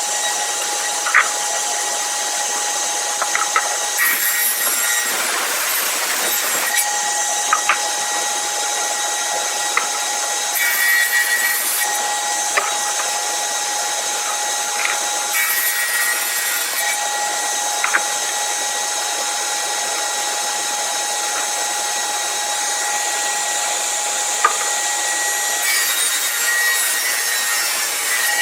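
Woodworking power saw running in a shop while red oak boards are cut: a steady machine whine over a continuous cutting noise that shifts every few seconds, with scattered sharp knocks.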